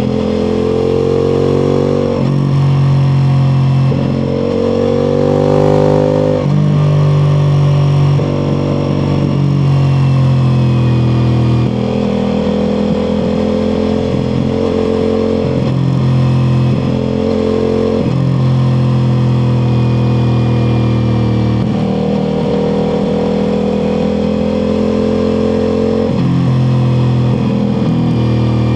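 Ducati Multistrada V4 Pikes Peak's V4 engine through an Akrapovič exhaust, under way on the road: its note climbs and drops back again and again, every few seconds, as the bike is ridden through the gears.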